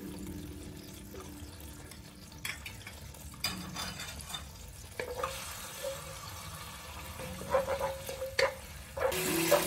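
Sauce sizzling and bubbling in a nonstick wok, with a few knocks and a wooden spatula scraping and stirring through it near the end.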